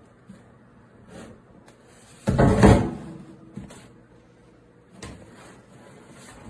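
A short, loud knocking clatter a little over two seconds in, like a lid or drawer being handled, with a few fainter clicks around it.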